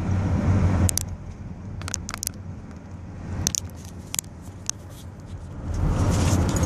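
Car cabin noise while driving: a steady low engine and road rumble, with scattered sharp clicks and taps at irregular moments.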